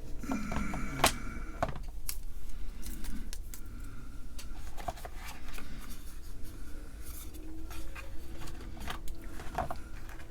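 Hand tools working on wiring: scattered small clicks and snips, like cutters or scissors trimming wire or tubing, with light handling of parts.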